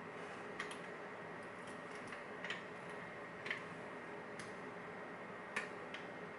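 Lock pick and tension wrench working the pins of a pin-tumbler challenge lock: a handful of faint, irregular metallic clicks over a steady low hiss.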